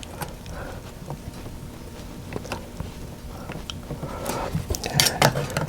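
Small tools clicking and scraping on the plastic latch of a ribbon-cable connector, being worked at to lift it up. There is a scatter of light ticks throughout and a quick run of sharper clicks near the end.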